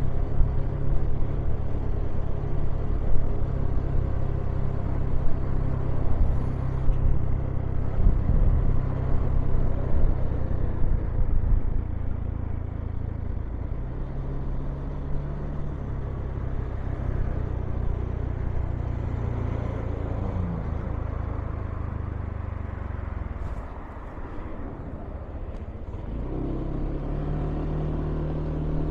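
Street traffic: motor-vehicle engines running and passing close by, a steady low engine hum whose pitch shifts as vehicles come and go, briefly easing off about three-quarters of the way through.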